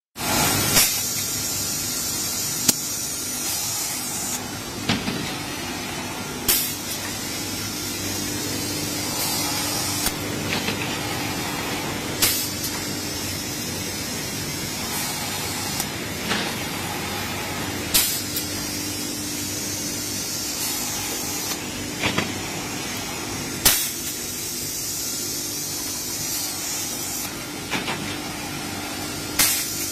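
Industrial panel sanding machine running steadily with a loud hiss and a low hum, broken by sharp knocks every two to six seconds.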